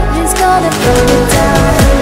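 Background pop-style music with a steady beat and deep bass notes that slide downward.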